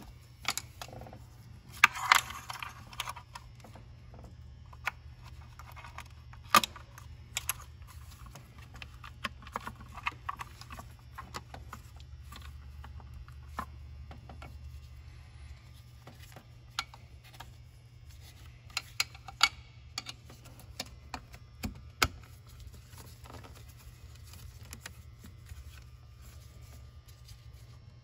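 Hand work on plastic engine-bay vacuum lines and fittings: scattered sharp clicks, taps and short rattles, with a brief rattling cluster about two seconds in. A steady low hum runs underneath.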